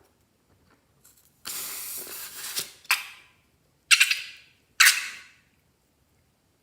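Handling noise from slime and balloons: a rough hiss for about a second, then three sharp crackles about a second apart, each fading quickly.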